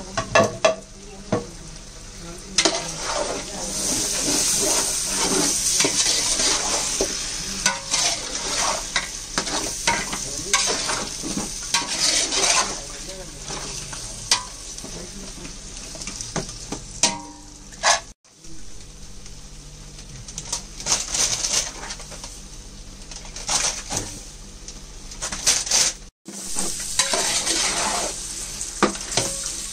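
Raw mutton pieces being stirred into a sizzling masala in a large aluminium pot with a metal ladle: a steady frying hiss with repeated scrapes and clanks of the ladle against the pot. The sound cuts out briefly twice, about two-thirds of the way in and again near the end.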